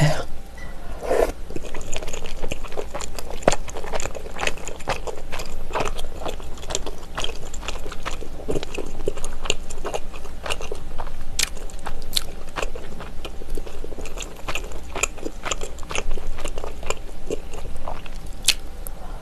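Close-miked chewing of spicy tteokbokki: soft, chewy rice cakes and sauce worked in the mouth, heard as a dense run of quick wet clicks.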